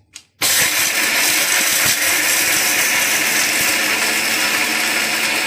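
Electric mixer grinder switching on about half a second in and running at full speed, its steel jar grinding coconut, shallots, green chillies and whole spices into a masala paste. Loud and steady.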